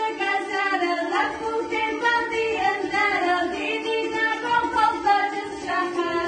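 Girls singing an Ossetian song, their voices rising and falling over steady lower notes of accompaniment.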